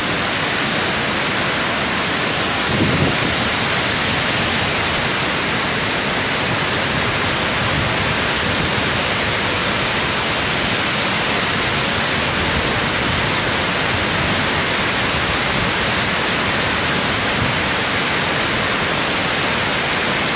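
Steady, loud roar of water jetting from Tarbela Dam's outlets and crashing into a great cloud of spray, with a brief low thud about three seconds in.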